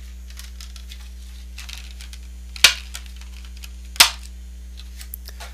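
Clear moulded plastic packaging tray crackling and ticking as earbuds and their cable are worked out of it, with two sharp plastic snaps about two and a half and four seconds in. A steady low hum runs underneath.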